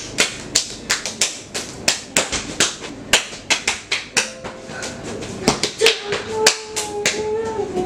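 Hands clapping sharply and irregularly, about three or four claps a second, swatting at mosquitoes.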